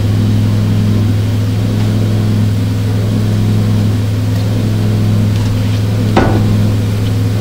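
A steady low hum from the 1870s single-cylinder shop steam engine as steam is let in at its throttle valve, with one sharp knock about six seconds in.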